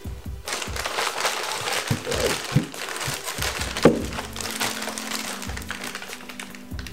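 Clear plastic bag wrapped around a new turbocharger crinkling and crackling as it is pulled and cut open, busiest in the first half, over background music.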